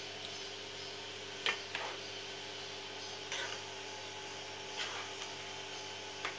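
A spoon scraping and knocking against a non-stick kadhai while gently stirring manchurian balls into thick gravy: about five short scrapes and taps a second or two apart, the loudest about one and a half seconds in, over a steady background hum.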